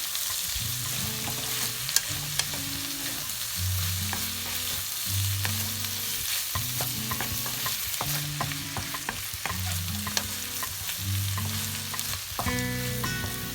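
Bitter gourd, pork and egg stir-fry sizzling steadily in a hot pan while being stirred, with a spatula clicking and scraping against the pan now and then.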